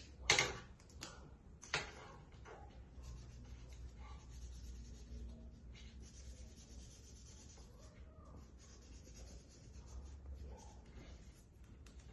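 Marker pen colouring a folded paper piece: a couple of sharp taps in the first two seconds, then a faint, steady scratching of the tip across the paper.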